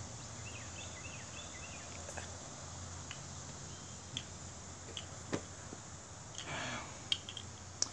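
Faint small clicks and taps as the parts of a disassembled lawn mower carburetor are handled, about half a dozen spread out, over a faint steady low hum, with a brief rustle about six and a half seconds in.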